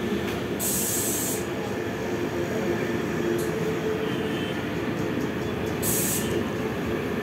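Steady machine drone with a low hum, broken by two short blasts of compressed-air hiss from a tyre-shop air line, one about a second in and a shorter one near six seconds.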